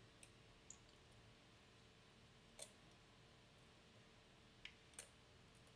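Faint, sparse clicks of a lock pick working the pins of a pin-tumbler challenge lock under tension, about five over several seconds, the clearest one a little past the middle.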